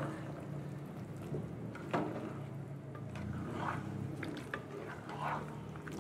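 Metal tongs clinking and scraping against a stainless steel pan while vegetables and beans in sauce are stirred and tossed, with a sharp clink about two seconds in, over a low steady hum.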